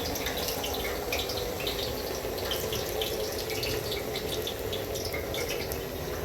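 Cooking oil poured in a steady stream into a large cooking pot, with scattered small crackles over the flow.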